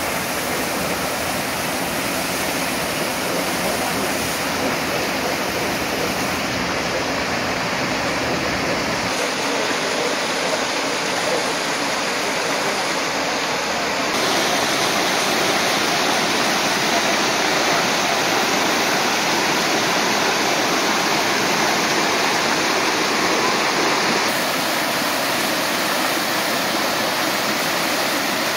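Mill-race water pouring over the wooden trough of an old water mill and splashing into a wooden basin below, a steady rush that is a little louder from about halfway.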